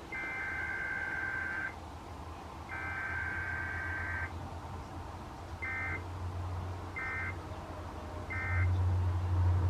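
Emergency Alert System SAME data bursts broadcast on NOAA Weather Radio for a Required Weekly Test: two long, buzzy two-pitch header bursts about a second apart, then three short end-of-message bursts. A steady low radio hum runs underneath and grows louder near the end.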